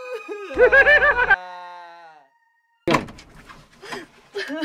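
A held, wavering musical note fades out. About three seconds in, a wooden door bangs shut with a loud thud, followed by small knocks and the start of a woman's sobbing near the end.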